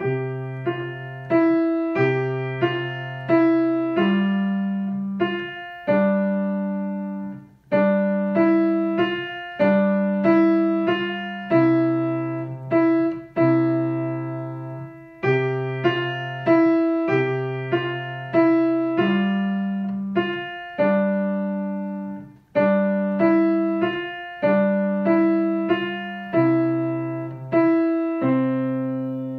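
Kawai piano played with both hands: a simple beginner's waltz in three-four time, a right-hand melody of single notes over long held bass notes in the left hand. There are two brief breaks between phrases, and the final note dies away near the end.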